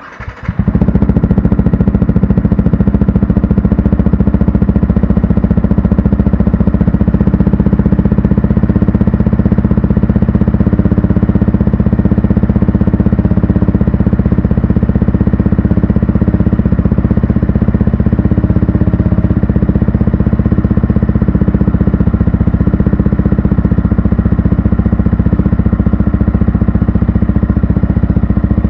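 Yamaha R15 v3's 155 cc single-cylinder engine running steadily through a kalkal (gutted, de-baffled) exhaust at idle. The sound cuts in suddenly at the start and then holds loud and even.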